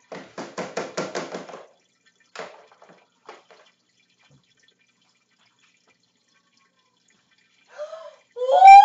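A quick run of about eight knocks or clatters, then a couple of single knocks and quiet. Near the end comes a woman's loud, startled cry rising in pitch, at the sight of her cat carrying a live mole in its mouth.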